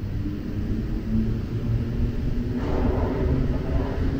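Rubber-tyred Azur metro train running, heard from inside the car: a steady low rumble with a few humming tones, growing louder and brighter with added hiss about two and a half seconds in.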